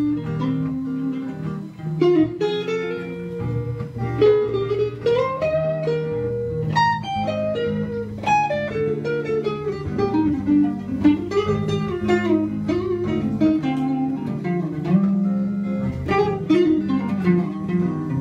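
A guitar playing a solo line with bent, sliding notes over a backing track of two simple chords.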